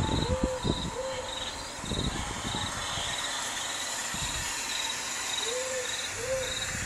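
Owl hooting: a pair of short hoots about half a second in, then another pair near the end. Under it, steady cricket chirps repeat about twice a second, with a few low thumps in between.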